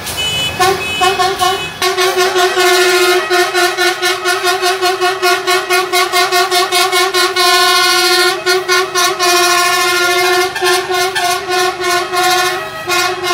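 Truck horn sounding in a long series of rapid toots, about three a second, held in one unbroken blast for about a second in the middle.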